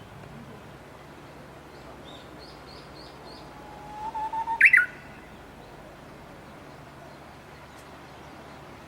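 A bird calling: a quick run of five short, high chirps, then a brief held note and a louder burst of sharp falling notes a little before the middle, over a steady background hiss.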